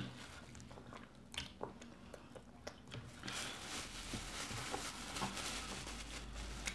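A few soft eating and lip-smacking clicks, then from about halfway plastic wrap rustling and crinkling as it is peeled off a ball of fufu.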